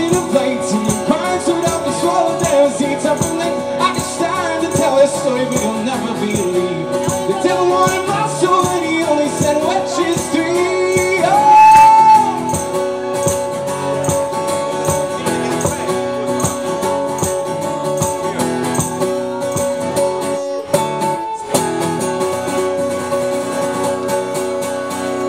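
Live male vocal with a strummed acoustic guitar. The singing rises to a long held high note about halfway, the loudest moment, and then the guitar strums on mostly alone toward the end of the song.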